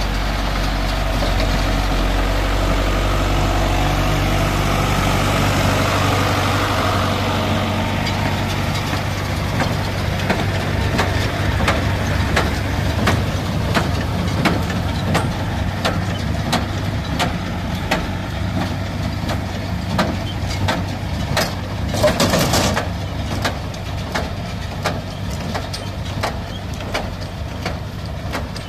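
New Holland TD90 tractor engine running steadily while it drives a New Holland BC5050 small square baler. From about a third of the way in, the baler knocks in a steady rhythm, and there is one brief louder rush of noise a little past three-quarters through.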